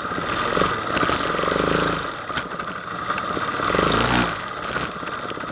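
ATV engine running under way on a trail, with the throttle opened up twice, about half a second in and again around four seconds in.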